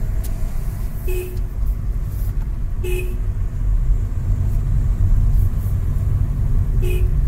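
Steady low road and engine rumble inside a moving car, with three short horn toots: one about a second in, one about three seconds in, and one near the end.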